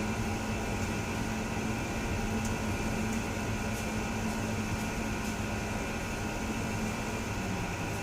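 Steady hum of construction machinery with a motor tone that holds, then dips in pitch and stops near the end.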